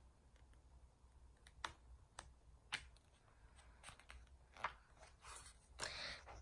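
Faint, scattered clicks of hands handling a hardcover picture book, then the soft swish of a page being turned near the end.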